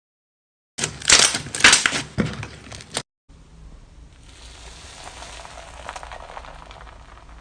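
Slime being squeezed and pressed by hand, giving about two seconds of loud crackling with dense clicks. After an abrupt cut, faint rustly handling over a steady hiss.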